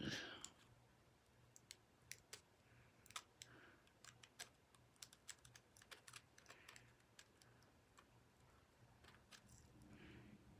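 Faint, irregular small clicks and taps of hands working at stiff plastic packaging to free a card.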